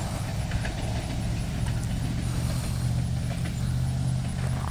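An engine idling steadily: a low, even hum with no change in pitch.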